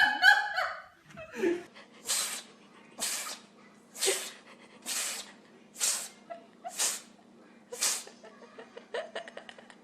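A pet makes seven short, hissy breath bursts in a row, about one a second.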